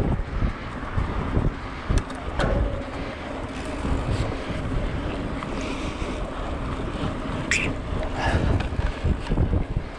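Wind buffeting the microphone with a steady low rumble. A few sharp clicks or rattles come about two seconds in and again around eight seconds.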